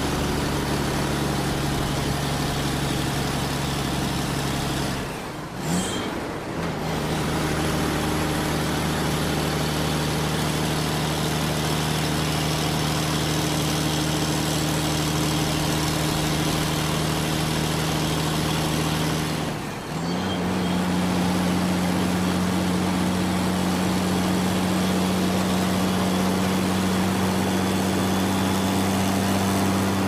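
Large truck's diesel engine running steadily while driving. Its note dips briefly twice, about five seconds in and again about twenty seconds in, and after each dip it settles at a slightly higher pitch.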